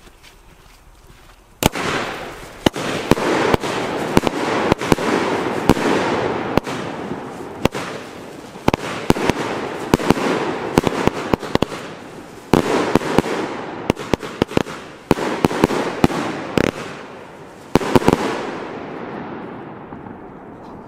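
Funke Iskra Line 'Wariat' fireworks battery firing, starting about two seconds in: a rapid string of loud salute bangs over a continuous rushing hiss from its whirling rising shots. There are a few short gaps between volleys, and it tails off near the end.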